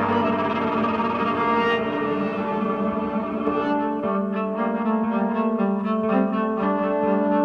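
Electric cello music built up in live-looped layers: sustained bowed notes, joined about four seconds in by a rhythmic pulsing figure of short repeated notes, about three a second.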